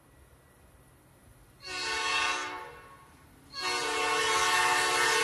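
Approaching Metra commuter locomotive's air horn, a multi-note chord, sounding two blasts: a short one about two seconds in and a longer one starting about a second and a half later. Beneath it, the faint low rumble of a passing double-stack freight train.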